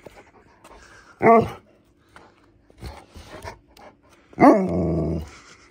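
Alaskan Malamute vocalising twice, a typical malamute "talking" call: a short call about a second in, then a louder, longer call near the end that falls in pitch.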